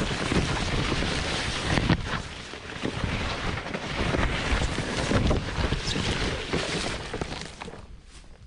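Wind buffeting the microphone: a rushing noise with gusty low rumbles that fades away near the end.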